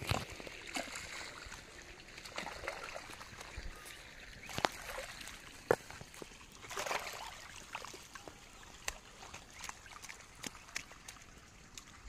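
Irrigation water from a borewell pipe flowing and trickling across a muddy field channel. Scattered splashes and knocks come from a hoe working the wet mud to open and close the channel.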